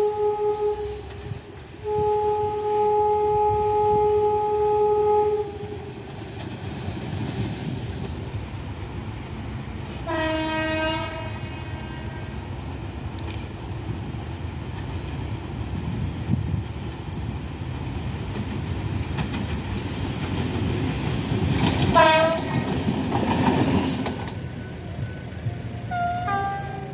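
A steady electronic warning tone sounds for the first five seconds, broken once briefly. Then a train rumbles past on the rails, sounding its horn about ten seconds in and again about twenty-two seconds in, with short horn toots near the end.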